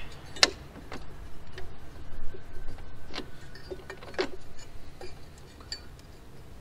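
A handful of scattered light clicks and taps as a metal solenoid bracket and its hoses are handled and fitted back in place in a car's engine bay, heard over a faint low rumble.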